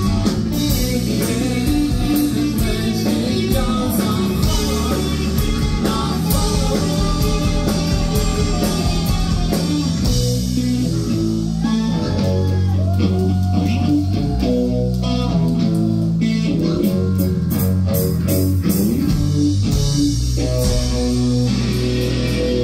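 A live rock band plays loud and steady: electric guitar, bass guitar and a Pearl drum kit with cymbals.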